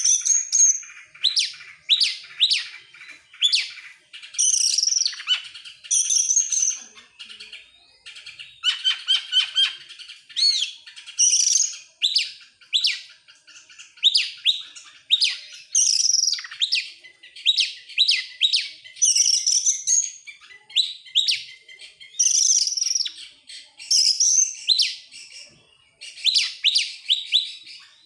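Oriental magpie-robin (kacer) in full song: a rapid run of chirps, sweeping notes and short whistles, delivered in bursts a second or two long with brief pauses between them.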